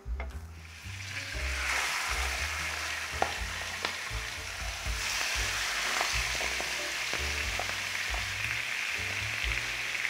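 Food sizzling in a hot frying pan, starting about a second in and holding steady, with a few sharp clicks of a utensil against the pan.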